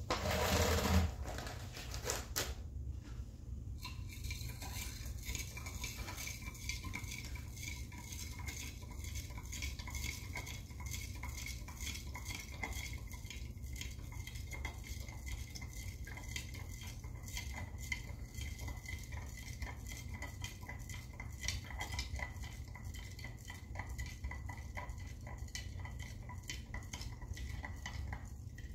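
Dye stock being stirred in a glass jar, the stirrer making a steady run of quick clinks against the glass as urea beads dissolve in the liquid. A louder burst comes in the first second.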